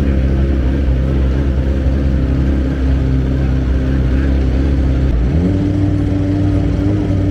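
BMW M1000RR superbike's inline-four engine idling loudly as it warms up. About five seconds in, the revs rise quickly and hold at a higher steady speed.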